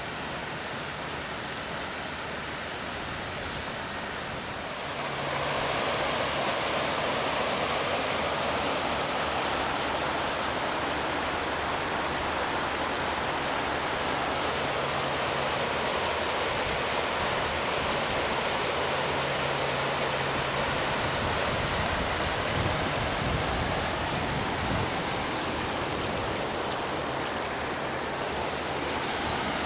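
Steady rushing of flowing floodwater, stepping up in level about five seconds in, with a brief low rumble a little past the middle.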